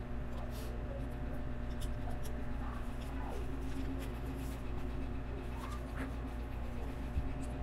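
Small plastic LEGO pieces being handled and pressed together, faint scattered clicks and rustles over a steady low hum.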